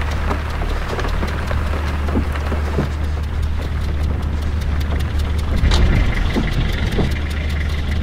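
London black cab's diesel engine running with a steady low rumble as the taxi pulls up and idles, with a short sharper sound about six seconds in.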